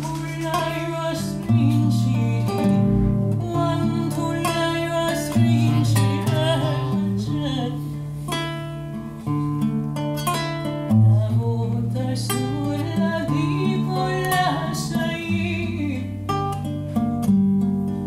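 Instrumental folk music played live: an acoustic guitar plucking a quick run of notes over held low bass notes.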